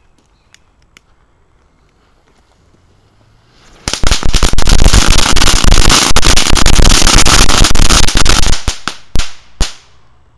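Small boxed ground firework going off: a brief hiss, then a very loud, dense run of rapid crackling bangs for about four and a half seconds, thinning out into a couple of last single pops.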